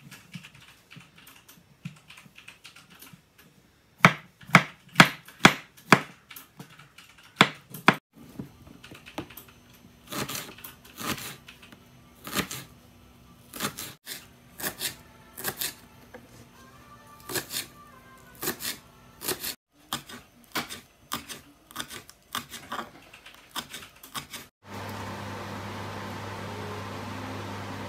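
Kitchen knife chopping button mushrooms and a red onion on a wooden cutting board: sharp knocks of the blade striking the board in quick runs of strokes, loudest in the first few seconds of chopping. About three seconds before the end the chopping stops and a steady low hum takes over.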